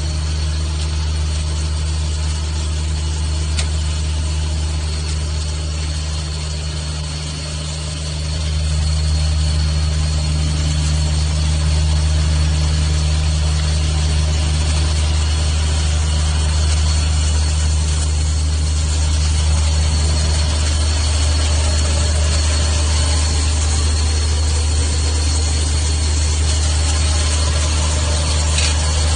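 An engine running steadily: a deep, even drone with a thin high whine above it, growing louder about eight seconds in.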